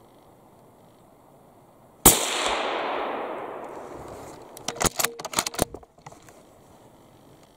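A hunting rifle shot at a moose, its report rolling away through the pine forest for about two seconds. About three seconds after the shot comes a quick run of sharp clicks and knocks.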